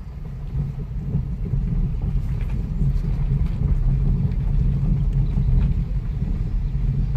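Car driving slowly: a steady low rumble of engine and road noise, getting louder about a second in.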